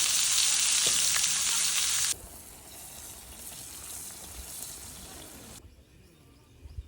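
Meat sizzling as it fries. The sizzle is loud and then drops suddenly to a quieter sizzle about two seconds in, which goes on until it cuts off a little before the end.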